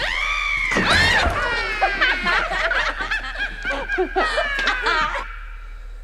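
Loud, high-pitched laughing that starts suddenly and cuts off abruptly about five seconds in.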